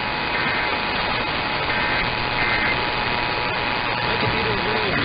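Radio broadcast audio buried in static: a steady hiss with a steady tone running through it that stops just before the end, and a few faint short higher-pitched bursts in the first few seconds. A faint voice begins to come through near the end.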